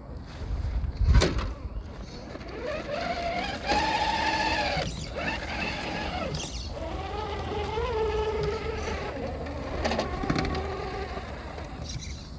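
Whine of an Axial Unimog 6x6 RC crawler's Hobbywing Quickrun Fusion brushless motor and geared drivetrain, rising and falling in several throttle bursts as it crawls over rocks. A sharp knock about a second in and a smaller one later are the truck's wheels or chassis striking rock.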